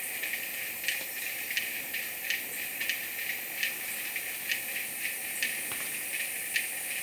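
Rainforest insects: a steady high hiss with irregular short chirps, one or two a second.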